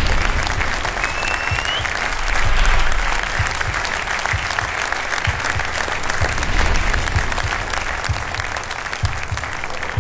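Large audience applauding steadily in a hall, with a brief rising whistle about a second in.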